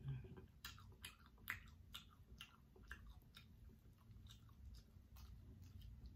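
Faint eating sounds from an air-fried Cornish hen: sharp clicks and crackles a few times a second as the crisp skin and meat are torn apart by hand and chewed. The clicks thin out after about three seconds.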